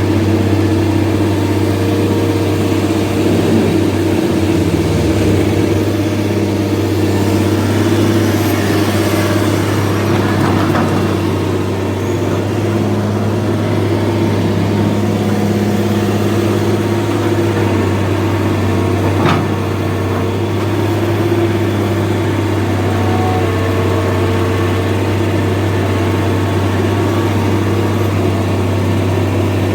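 An engine running steadily with a constant low hum, with one sharp click about two-thirds of the way through.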